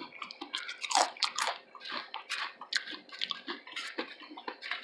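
Chewing and lip smacking with a mouthful of food: a run of irregular soft clicks and squelches, a little louder about a second in.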